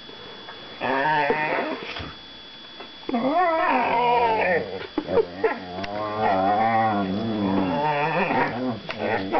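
Two young whippets mouth wrestling, growling and grumbling at each other in long, wavering play vocalisations: the 'trash talk' of play-fighting, not real aggression. There is a short burst about a second in, then almost unbroken grumbling for the last six seconds or so.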